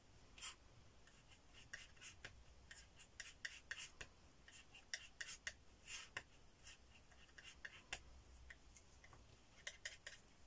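Faint, irregular scrapes and clicks of a steel palette knife mixing acrylic paint on a palette.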